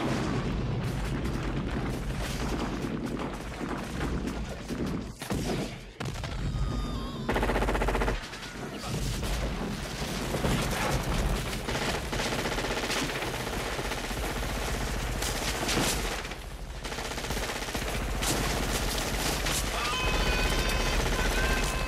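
War sound effects: rapid gunfire and machine-gun bursts over a steady low rumble.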